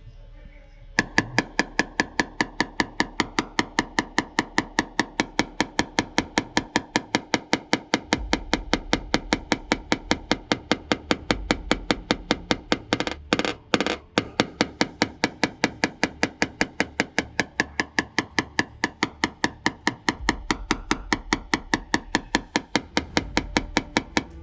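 Rapid, even tapping, about five light taps a second with a short ring after each. This is typical of a paintless dent repair knockdown tool being hammered along a car panel to blend out high spots; there is a brief break in the rhythm about 13 seconds in.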